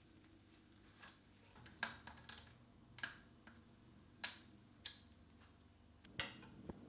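Small hand ratchet with a hex bit tightening a bicycle's seatpost clamp bolt: about seven sharp, irregularly spaced clicks.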